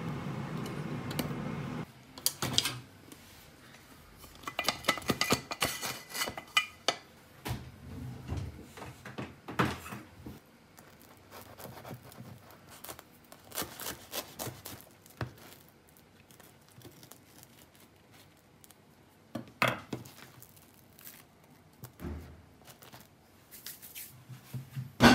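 A kitchen knife crunching through a grilled toasted sandwich on a wooden cutting board, with scattered clicks and knocks of the knife and board. A steady noise cuts off abruptly about two seconds in, and a sharp knock at the very end is the loudest sound.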